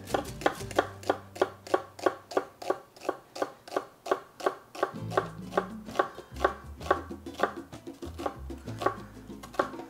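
Chef's knife finely dicing a white onion on an end-grain wooden cutting board: quick, even knife taps on the board, about four a second, thinning out near the end. Quiet background music with a bass line runs underneath.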